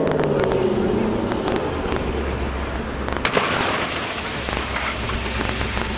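Loaded tipper truck driving past: engine running, its note falling over the first second or so, with the body rattling and a low rumble. A sharp crack comes about three seconds in.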